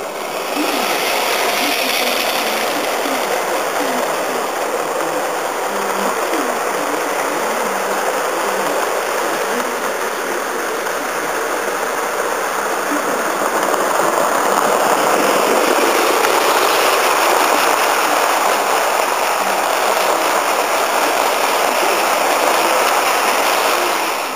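Model railway trains running on the layout's track: a steady rolling rush of wheels on rail and motor noise. It grows louder about halfway through as the trains pass close, and falls away near the end.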